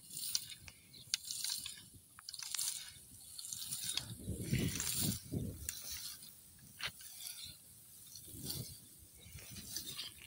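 Dry threshed stalks rustling and crackling as a long-handled fork scoops and tosses them from a pile, in irregular repeated strokes. Seeds and bits of straw patter down, with a few sharp clicks and dull thuds as the fork hits the ground. The straw is being turned to shake the seeds out of it.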